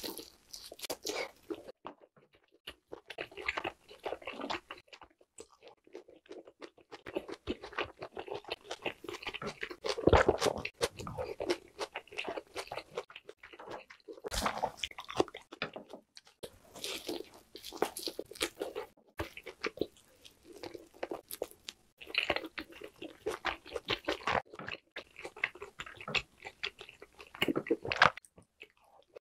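Close-miked eating of grilled lamb: biting and chewing the meat, wet, crunchy mouth sounds coming in irregular bursts with short pauses.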